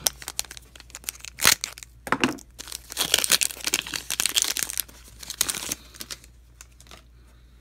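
A Pokémon trading card booster pack's foil wrapper being torn open and crinkled by hand. There are sharp rips about a second and a half and two seconds in, then a dense stretch of crinkling that dies down about two seconds before the end.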